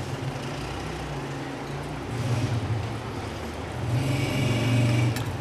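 A motor vehicle's engine running: a low steady hum that swells about two seconds in and more strongly near the end.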